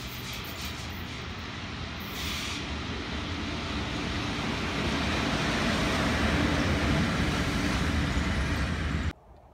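Two coupled SBB Cargo Re 4/4 II electric locomotives approach and pass close by, a steady rumble of wheels on rail with motor hum that grows louder as they near. The sound cuts off suddenly near the end.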